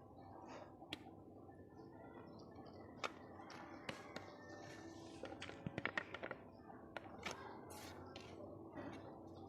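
Eating sounds: chewing with scattered soft clicks, and a quick run of sharper clicks a little past the middle.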